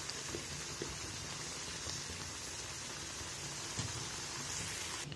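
Mutton keema in water simmering in a frying pan, a steady sizzling hiss with a few faint ticks as the water cooks off.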